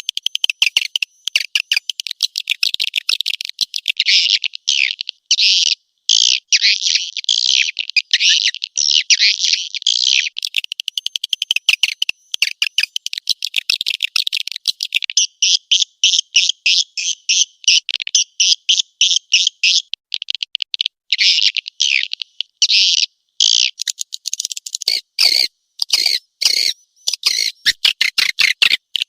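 Swiftlet call recording (a lure sound for swiftlet houses): dense, rapid high-pitched chattering twitters and trills with brief gaps, and a few rougher, deeper calls near the end.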